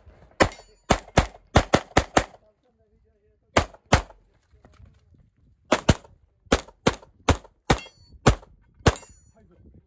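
CZ Shadow 2 9mm pistol fired in rapid strings during a practical-shooting stage. About seven quick shots come first, then a short pause, then a pair, then another string of about eight shots at a slightly slower, even pace, with brief gaps where the shooter moves between positions.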